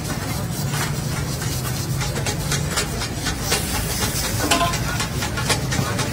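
Oil sizzling in a karahi over high gas flames: a steady hiss with many sharp crackles from about halfway through, over a continuous low rumble of the burners.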